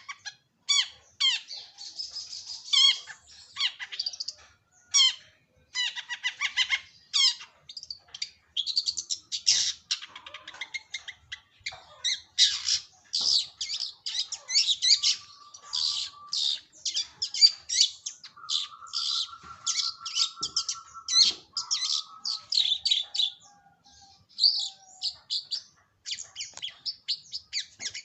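Long-tailed shrike (cendet) singing: a fast run of harsh, chattering notes, varied and nearly continuous. A lower, buzzy trill is held for about three seconds a little past the middle.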